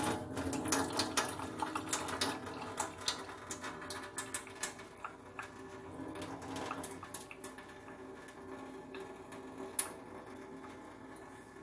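Rinse water pouring from a rice cooker's inner pot into a stainless steel sink as washed rice is drained, with a hand pressing on the wet grains. Many small clicks and ticks come through in the first few seconds, then thin out as the flow dies down.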